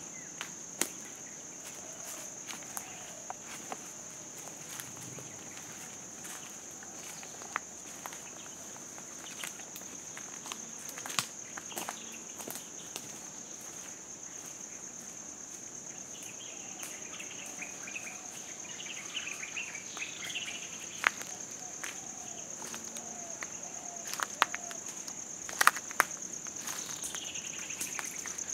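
Steady high-pitched drone of an insect chorus, with scattered sharp clicks and snaps throughout and a few brief chirping calls around the middle and near the end.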